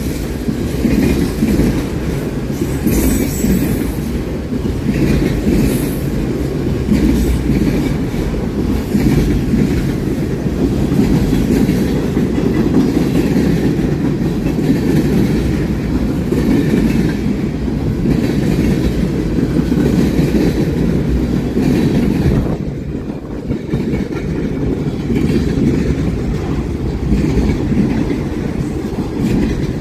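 A train's cars rolling past close by: a loud steady rumble of wheels on rail with clicking wheel-over-joint clatter.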